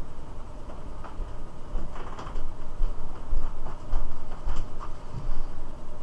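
Scattered light clicks and scrapes of small objects being picked up and moved about on a workbench, busiest in the middle.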